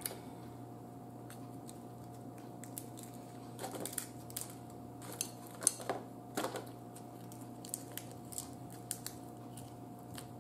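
Baked crab shell being cracked and picked apart by hand, giving irregular small cracks, snaps and clicks, busiest in the middle stretch, over a steady low hum.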